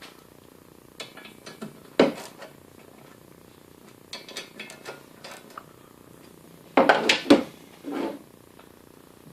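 Metal machine parts and hand tools clinking and knocking as a belt sander is put back together by hand. There is a loud knock about two seconds in, a run of light clinks a little later, and the loudest cluster of knocks near the end.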